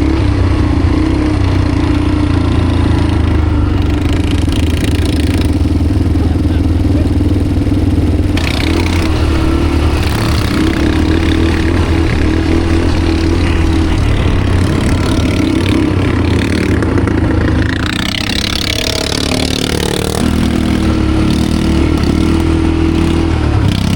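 ATV engine running steadily while under way. About eighteen seconds in, the engine note drops and eases off, then rises again a few seconds later.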